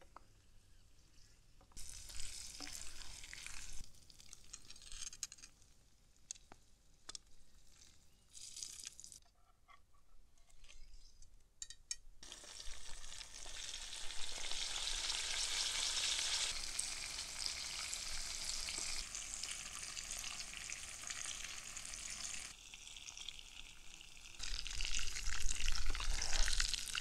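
Oil and sauce sizzling in a frying pan over embers as chilies and garlic, then charcoal-grilled scorpionfish, fry in it, with a wooden spatula stirring. The sizzling comes in short patches at first, then runs on steadily from about halfway and is loudest near the end.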